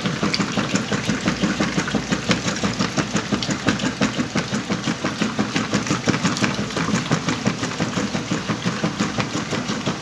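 Whirlpool top-load washing machine agitating a load of blankets in water: the motor and agitator running with a quick, even churning rhythm.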